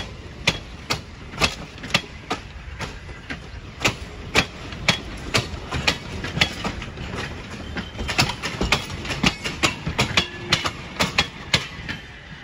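Steel wheels of passing passenger coaches and a caboose clacking over the rail joints: a rapid, uneven string of sharp clicks over a low rumble, which thins out as the last car goes by near the end.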